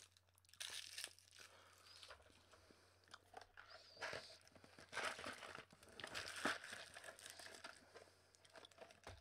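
Faint, irregular crinkling and rustling of a cardboard candy box and plastic-wrapped candies being handled, in short scattered bursts with brief pauses.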